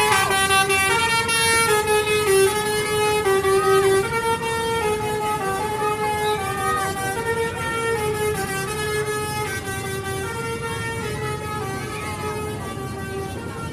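Bus telolet horn, a multi-tone electric horn, playing a tune of quick stepped notes over and over, loudest for the first four seconds and then a little softer.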